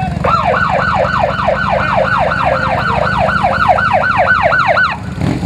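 Police motorcycle siren in yelp mode, a fast rising-and-falling wail about four times a second, which cuts off shortly before the end. Underneath, the motorcycle engines run at low speed with a steady hum.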